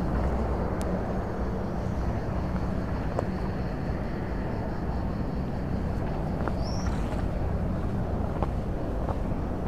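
Outdoor walking ambience: a steady low rumble, with a few faint scattered clicks and a short high rising chirp about seven seconds in.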